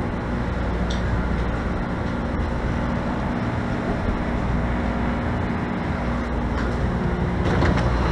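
CTA rapid-transit rail car in motion, heard from inside the car: a steady rumble with a low hum, growing a little louder near the end.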